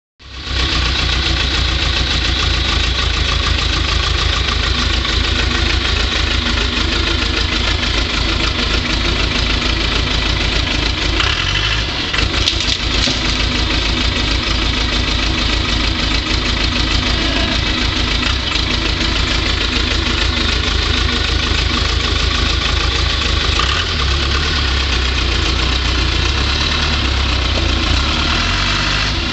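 Cummins 4BT four-cylinder turbo diesel in a Ford Ranger pickup running steadily with a diesel clatter as the truck pushes against a tree trunk.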